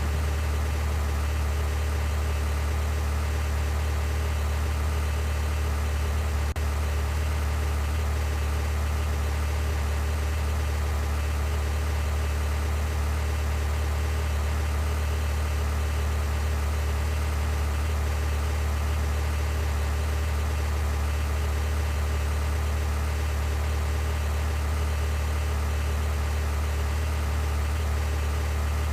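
Steady, unchanging low drone of a vehicle engine, with a single faint click about six and a half seconds in.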